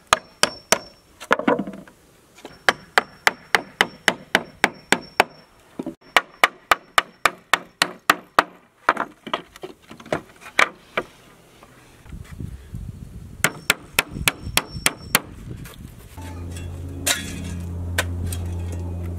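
Hammer driving nails into wooden pallet planks: runs of quick, even blows, about three a second, with short pauses between runs and a high ring along some of them. Near the end a steady low hum comes in.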